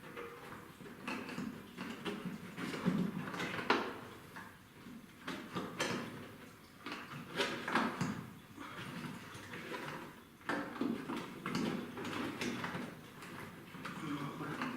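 A rat trap rattling and scraping with a large caught rat in it, irregular scrapes with occasional sharp knocks.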